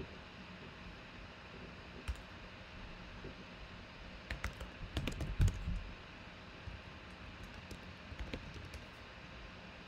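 Computer keyboard typing: scattered keystroke clicks, a quick burst of keys with one heavier thump about halfway through, then a few more taps, over a steady faint hiss.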